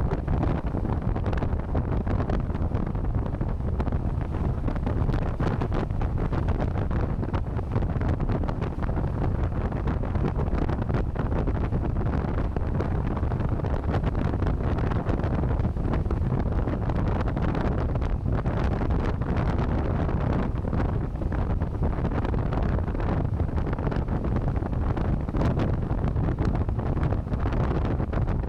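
Heavy wind buffeting the microphone of a rider on a moving electric motorcycle: a steady, low rushing rumble.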